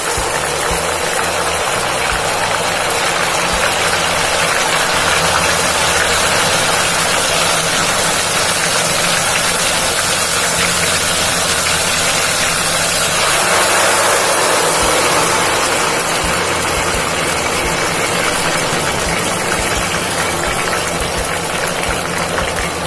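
Ghevar batter frying in a pot of hot ghee: a loud, steady sizzle of bubbling fat, swelling briefly about halfway through.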